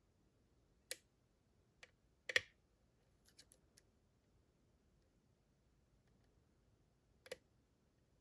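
A few sharp clicks and ticks of lock picking tools working the pins of a DORMA DC500 lock cylinder, sparse and uneven: one about a second in, the loudest shortly after two seconds, a quick little run around three and a half seconds, and one more near the end.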